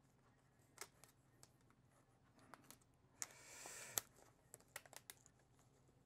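Faint handling sounds of a cardboard firework tube being turned and wrapped with thread: scattered small clicks and taps, with a brief scraping rustle a little after three seconds in.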